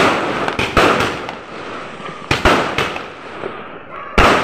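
Aerial fireworks bursting overhead: about half a dozen sharp bangs, some in quick pairs, with crackling between them.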